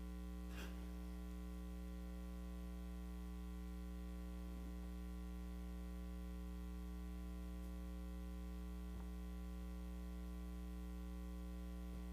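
Steady electrical mains hum with its evenly spaced overtones, unchanging throughout, with a few faint soft knocks.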